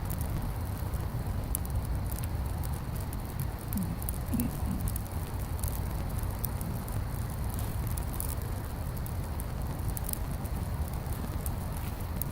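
Wood bonfire crackling, with irregular sharp pops scattered throughout, over a steady low rumble.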